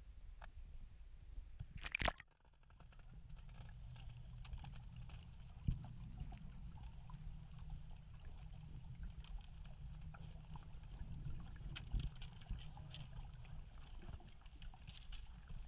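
Muffled underwater sound: a steady low rumble with scattered faint clicks, and one sharp knock about two seconds in.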